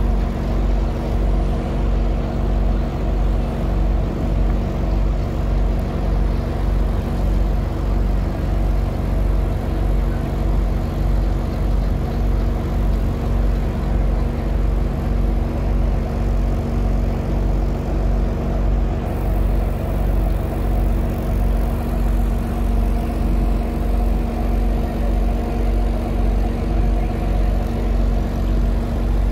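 Vessel's engine running steadily, heard on board while under way: a deep, even hum with a slow, regular throb.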